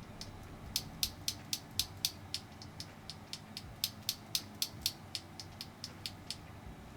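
Mechanical keyboard switches, an old red switch and a new Gateron Yellow being compared, pressed by hand one click after another, about four sharp clicks a second for around five seconds.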